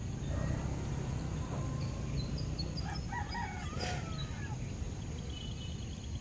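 A rooster crowing once, about three seconds in, over a steady low rumble, with a run of short high bird chirps just before it.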